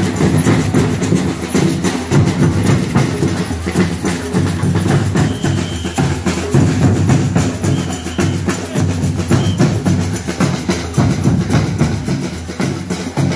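A marching band in the parade playing loud music with heavy, rapid drumming.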